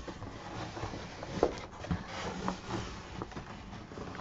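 Cardboard box flaps being handled and folded back by hand: scraping and rustling of cardboard, with a few sharper taps along the way.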